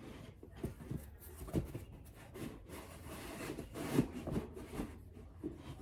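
Drawer bottom inserts being pushed down into fabric storage drawers: irregular rubbing with scattered light knocks, the sharpest knock about four seconds in.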